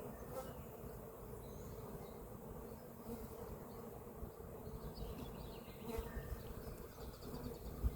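Carniolan honeybees buzzing steadily as a mass in their just-opened package box, with a dull knock about six seconds in.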